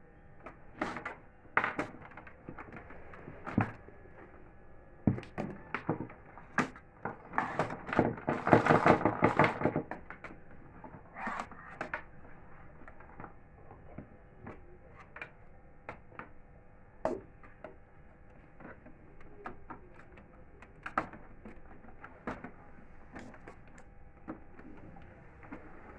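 Plastic clicks, knocks and rattles from the body and scanner unit of an Epson M2140 printer being handled and opened, irregular, with a dense run of crackling rattles around the middle.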